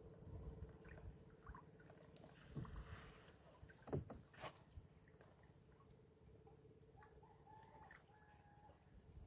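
Quiet handling of a fishing net hauled by hand into a small outrigger boat, with a few soft knocks against the boat, the loudest about four seconds in.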